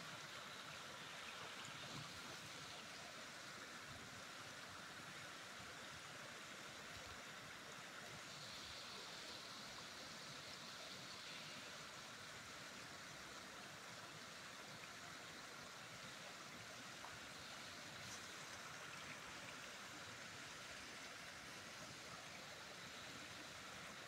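Shallow water running over stone steps: a faint, steady, even rush.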